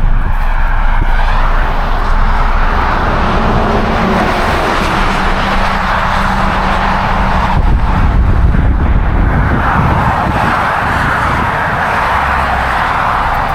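Road traffic passing close by: a loud rush of tyre and engine noise that swells and fades as vehicles go past.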